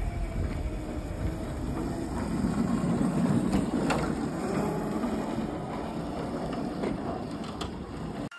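Small drift kart rolling and sliding across asphalt: a steady scraping rolling noise from its small wheels, with a few sharp clicks.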